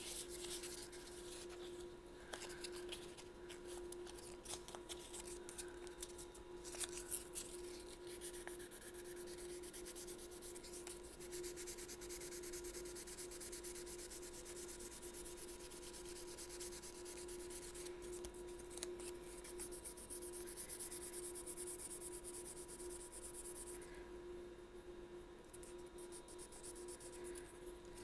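Fine sandpaper rubbed by hand over an Albert-system clarinet's thumb rest: faint, irregular scratchy sanding strokes as the rest is ground down flush so it can't be felt under the thumb.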